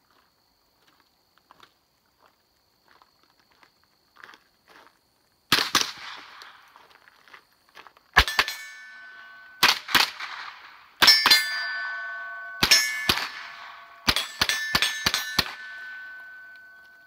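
A string of about a dozen rifle shots starting about five seconds in, spaced a second or more apart at first and coming faster near the end. Each volley is followed by a lingering metallic ringing, like struck steel, that fades after the last shot.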